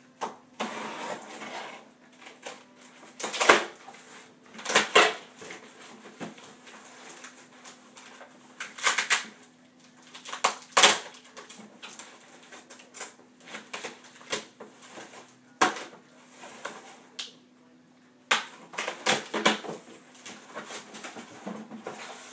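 Cardboard shipping box being cut and torn open: irregular bursts of packing tape ripping and cardboard flaps scraping and rustling, with pauses between them.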